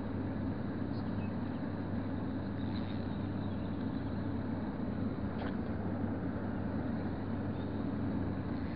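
A steady, low mechanical drone with a constant level, its energy deep in the low end.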